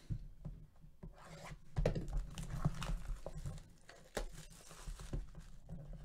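Cardboard trading-card hobby box being handled and its lid worked open: scattered light taps, scrapes and soft rustling of cardboard under fingers.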